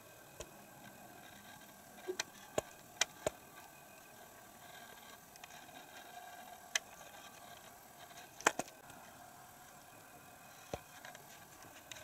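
Quiet room tone broken by about ten short, sharp clicks and taps at irregular times, the loudest a double tap about eight and a half seconds in. The smoke alarm is not sounding.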